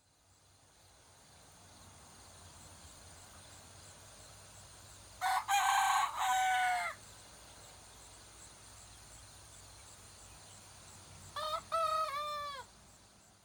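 A rooster crowing twice, about six seconds apart, each crow in several parts ending on a falling note, over a faint steady hum.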